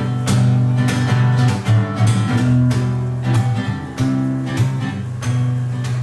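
Acoustic guitar being strummed in a song's instrumental passage, with steady chords and repeated strums and no singing.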